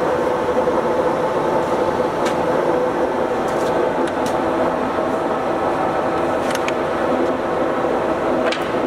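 Summit engine lathe running under power, a steady whine of its gear train with several even tones, and a few faint ticks.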